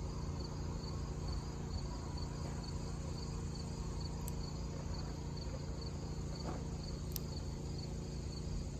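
A cricket chirping in quick, even pulses over a steady low hum, with a couple of faint clicks.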